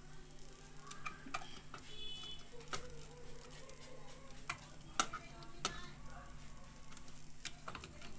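Faint, irregular clicks and taps of meter probes and handling on a TV's audio circuit board while the supply at the replaced resistor is checked, over a steady low hum, with a brief high tone about two seconds in.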